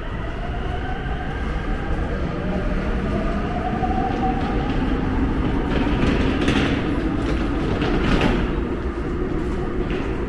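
Subway train running along the track: a steady rumble with the whine of its electric motors gliding in pitch, and a couple of louder rushes a little after the middle.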